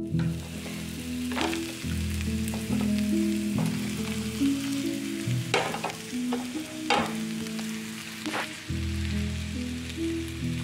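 Carrot slices and shallots sizzling in hot coconut oil in a frying pan, stirred with a wooden spatula that knocks and scrapes against the pan a few times.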